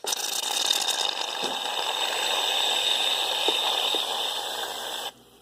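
Aerosol can of shaving cream spraying foam in one long steady hiss that cuts off suddenly about five seconds in.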